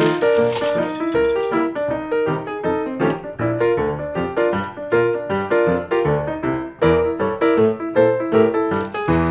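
Background music: a light piano-like keyboard tune, its notes following one another in a steady rhythm.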